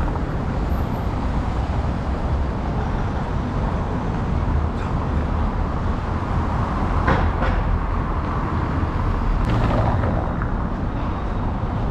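Steady rumble of vehicle noise, strongest in the low end, with faint short knocks about seven and nine and a half seconds in.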